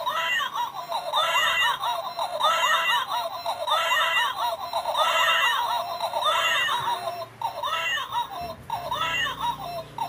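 Toy baby dolls' electronic crying sound, a recorded infant wail repeated about once a second.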